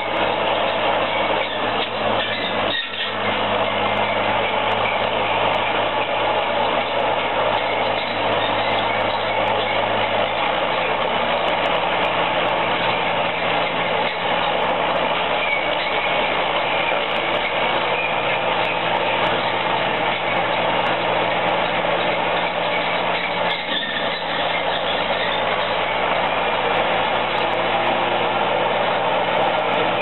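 Engine of a heavy tree-cutting machine running steadily; its engine note shifts about ten seconds in.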